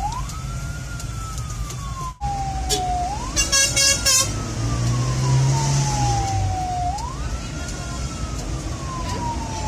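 Ambulance siren on a slow wail, sweeping quickly up and then slowly down about every four seconds, heard from inside the cab over steady engine and road noise. A little after two seconds in there is one short horn blast, then a quick run of loud horn blasts.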